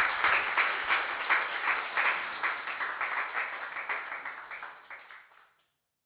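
Audience applauding, many hands clapping, tailing off and ending about five and a half seconds in.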